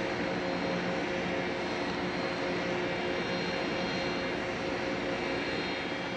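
Car ferry's diesel engines and machinery running with a steady drone: an even hum of several constant tones that holds unchanged throughout.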